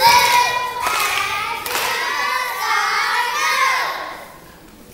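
A young voice singing, with two sharp hits about one and two seconds in; the singing dies away near the end.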